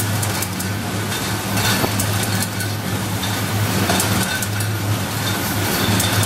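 WA Flex 514 bottle case-packing machine running: a steady low hum under continuous clatter from its drive chains and moving parts, with scattered sharp clicks.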